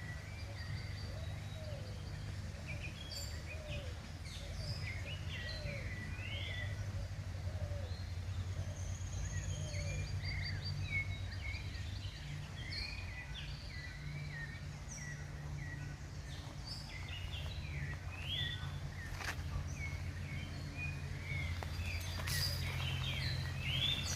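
Birds chirping and calling, many short rising notes from several birds, over a steady low rumble.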